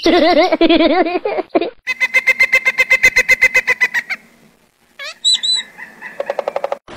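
Bird-like calls: a warbling pitched call, then a fast even run of about eight pulses a second lasting about two seconds, and after a short pause a couple of rising swoops and another quick pulsed run near the end.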